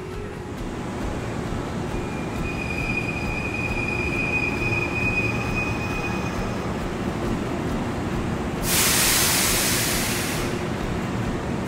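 Hankyu electric train in an underground station, its running rumble carrying a steady high wheel squeal for a few seconds. Near the end comes a loud hiss of air lasting about two seconds.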